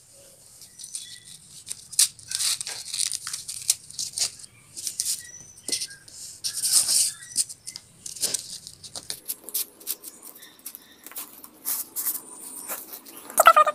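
Cardboard and paper being handled: scraping, rustling and light taps as the paper hands of a homemade cardboard clock are turned and its paper tabs lifted, in irregular short bursts. A brief high-pitched whine near the end.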